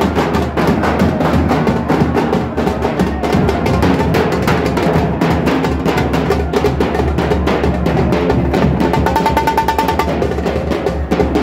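Drum-heavy music: drums beating a fast, dense rhythm.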